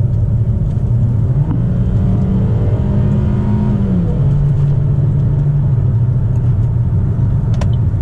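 Cabin sound of a 2015 Buick Encore's 1.4L turbocharged Ecotec four-cylinder accelerating on the road. The engine note rises, drops about four seconds in at an upshift, then holds steady over a constant low road rumble.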